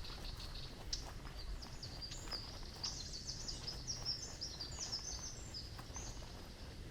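A small songbird singing a rapid jumble of short, high chirps and twitters, from about a second and a half in until near the end, with a few faint clicks.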